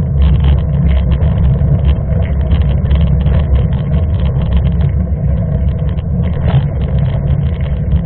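Wind and road rumble on a bike-mounted camera's microphone as a mountain bike rolls along asphalt: a steady heavy low rumble with rapid, irregular ticking and rattling from the bike and mount.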